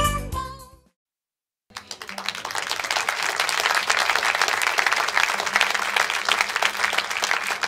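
A song cuts off in the first second; after a second of silence, a crowd starts applauding and keeps clapping steadily.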